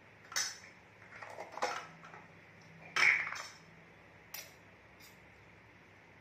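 Steel spoon and spice jars clinking against kitchen dishes while spice powder is spooned out: a handful of short knocks and taps, the loudest about three seconds in.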